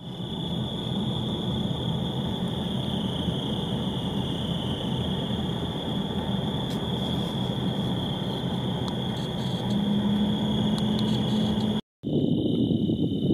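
Car driving on a paved road, heard from inside: steady road and engine noise with a steady high-pitched tone over it. About twelve seconds in it cuts off suddenly to a quieter scene with irregular low rustling.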